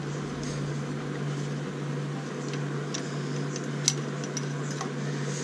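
A steady low hum, with a few light metallic clicks and taps from hand tools working on the engine. The sharpest click comes about four seconds in.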